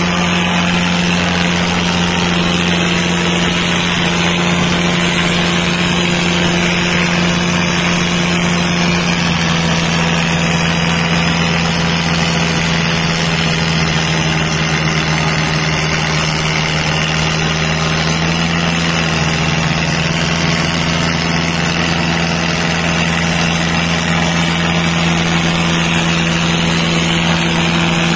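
Diesel tractor engine running at steady revs, a constant loud drone from the 55 hp tractors in a tochan tug-of-war pull.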